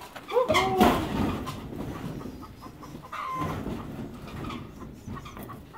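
Chickens calling in a farmyard: a short, bending call about half a second in and a brief held note about three seconds in. There is a short loud rattle just under a second in.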